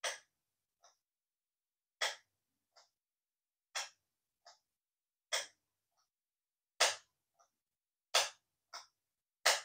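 Desk lamp's push-button switch clicked over and over, a sharp click about every one and a half seconds, each followed by a fainter click. The switch is being tried after a spray of contact cleaner meant to cure the lamp's flickering.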